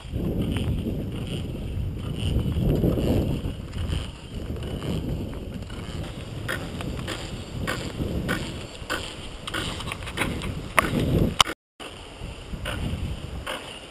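Wind rushing over a mountain bike's action-camera microphone with the rumble of knobby tyres rolling fast on a dirt trail. About halfway, on a smoother road, the rumble eases and sharp clicks and rattles from the bike come through. The sound cuts out for a moment near the end.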